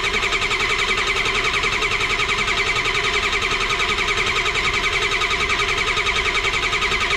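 Ford 7.3 IDI V8 diesel running at a steady idle, a loud even clatter heard with the engine cover open. Its passenger-side exhaust manifold is leaking, blowing exhaust at the manifold.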